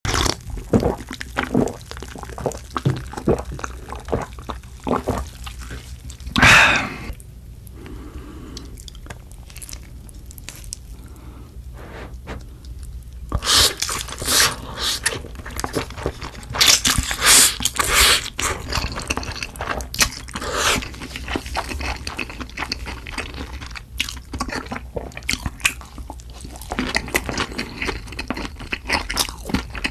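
Close-miked eating sounds: wet chewing and crunching of food in short irregular clicks, with a loud burst about six seconds in and a dense, loud stretch from about 13 to 19 seconds.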